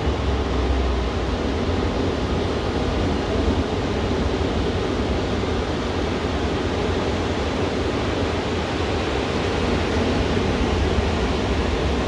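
Ocean surf breaking and washing up a sandy beach: a steady rush of noise with a low rumble underneath.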